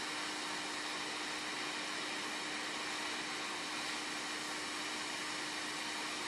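JBC hot air rework station blowing a steady hiss of hot air through its nozzle at 50% airflow, with a faint constant low hum underneath, heating the solder of a surface-mount component to release it.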